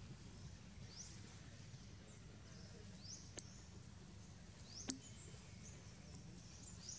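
Faint outdoor ambience with a short, high, upward-sweeping chirp repeating about every two seconds. Two sharp clicks sound, the louder one about five seconds in.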